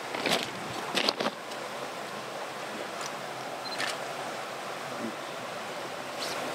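Steady rush of stream water, with a few sharp clicks and rustles of handling about a second in and again near four seconds.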